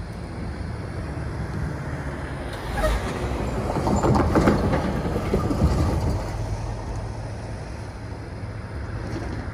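Semi-truck pulling a box trailer, with a pickup truck, driving across a railroad grade crossing: the diesel engine running and the tires clattering over the rails, loudest about four to five seconds in, then fading away.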